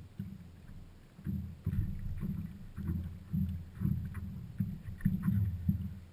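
Irregular low, hollow thuds and knocks on a stand-up paddleboard, about two a second, with faint higher clicks and water lapping against the board.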